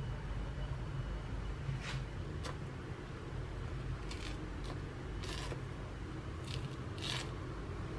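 A mandarin orange being peeled by hand: short scratchy tearing sounds of the peel coming away, about seven times, over a low steady hum.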